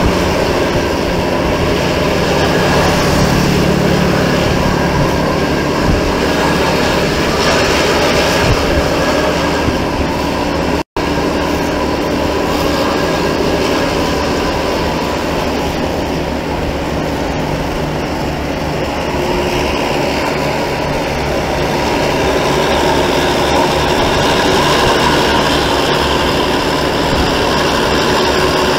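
Steady rumble of road travel: vehicle engine, tyre and wind noise while riding in traffic. The sound cuts out for a split second about eleven seconds in.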